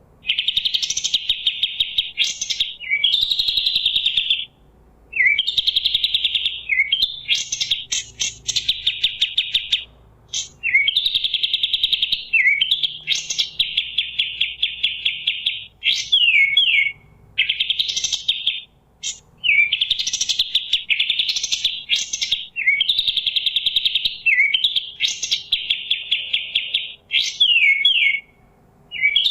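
Kapas tembak songbird singing: fast chattering trills of a second or two each, repeated with short pauses, broken up by quick sweeping whistled notes.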